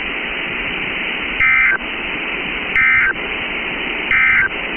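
Three short bursts of EAS end-of-message data (SAME "NNNN" tones), each a brief warbling two-tone chirp, about 1.4 seconds apart, over steady weather-radio static hiss. They mark the end of the weather alert broadcast.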